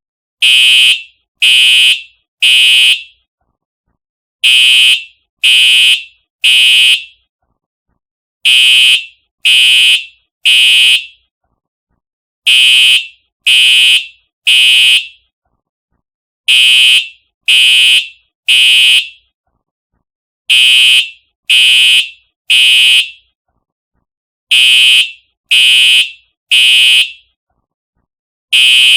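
Simplex TrueAlert fire alarm horn sounding the temporal-3 evacuation pattern: three loud half-second blasts one second apart, then a pause, repeating about every four seconds. The horn has a harsh electronic tone centred high in pitch.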